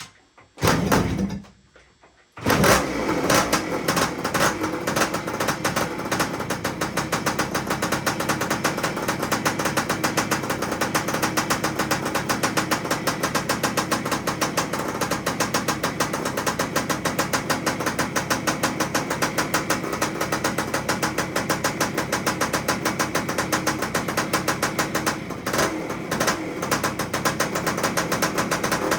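1973 Yamaha CT3's single-cylinder two-stroke engine fires about two and a half seconds in and keeps running with a fast, even popping beat. This is its first run after a complete engine rebuild.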